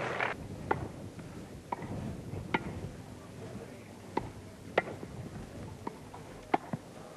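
Tennis ball struck back and forth by wooden rackets during a rally on a grass court: a string of sharp, irregularly spaced pocks of racket on ball, over a faint background murmur.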